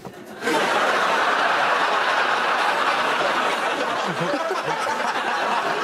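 Studio audience laughing, starting about half a second in and fading out near the end.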